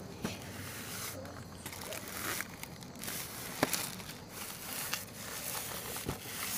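Rustling and crinkling as a 12-shot sky-shot firework box is handled and turned over in the hands, with scattered small clicks and one sharp tap about three and a half seconds in.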